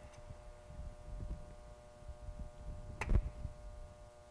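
Low, irregular handling noises over a steady electrical hum, with a single sharp click about three seconds in.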